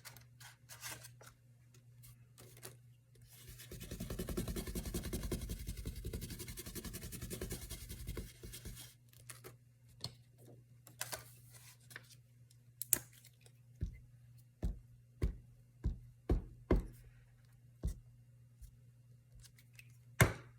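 A small glue brush scrubbing quickly back and forth over paper for about five seconds, then paper rustling and a run of light taps and thumps on the table as the glued page is handled and pressed down.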